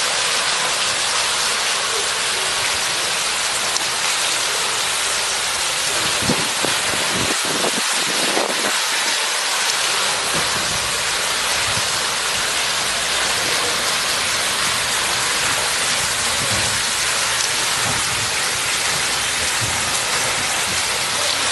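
Steady rushing and splashing of churning swimming-pool water, from a water jet foaming the surface at the pool's edge.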